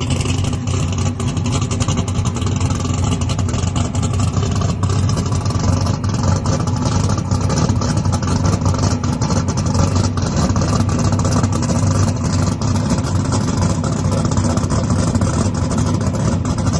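Turbocharged LS V8 race engine running on M1 methanol fuel, idling steadily at a constant pitch.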